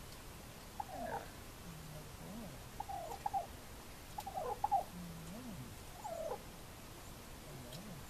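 White domestic turkey tom in strut, giving soft purring, chirping calls in about five short bouts, with a few low hums between.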